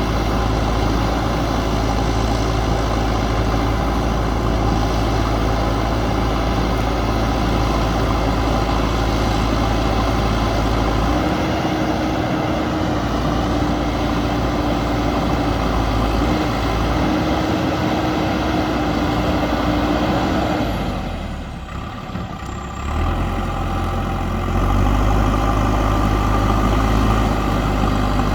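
JCB backhoe loader's diesel engine running under load. A steady whine joins in about eleven seconds in; the engine eases off briefly about three-quarters of the way through, then picks back up.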